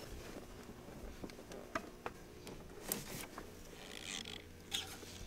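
Faint, scattered light clicks and taps of hand work on the serpentine belt and tensioner tool as the belt is fitted over the pulleys, over a faint steady hum.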